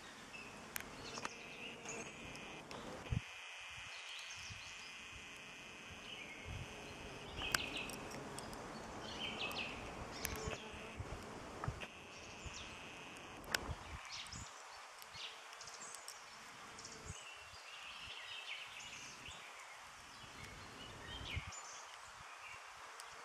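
Bumblebee buzzing around flowers, with birds singing and chirping in the background and a few sharp clicks and rustles.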